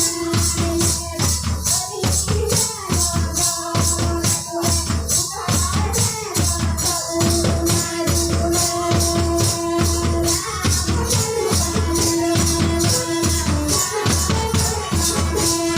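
Santali music with a steady low beat, a fast, even pattern of high rattling percussion and held melodic notes.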